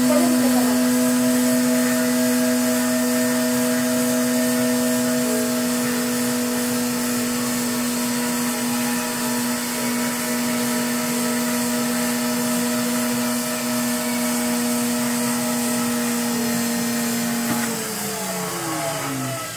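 Electric spindle drink mixer running steadily with a humming whine as it blends a milkshake in its steel cup. About eighteen seconds in it is switched off and the motor winds down, its pitch falling.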